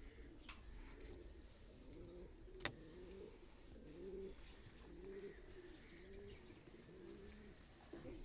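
Domestic pigeons cooing faintly over and over, with a sharp click about two and a half seconds in.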